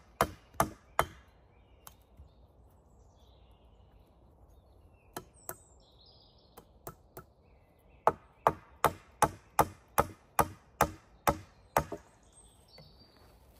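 Wood being chopped with a blade in quick, evenly spaced sharp strikes, about three a second. A short run stops about a second in, a few light knocks follow, and a second run of about eleven strikes starts about eight seconds in and stops near twelve seconds.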